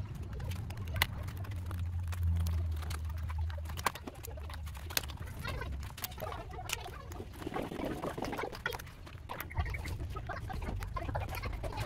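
Small clicks, snaps and scraping as a screwdriver pries a strip off the cell bus bars of a BYD blade battery pack, with a denser crackle of peeling about two-thirds of the way through. A low hum runs under the first few seconds.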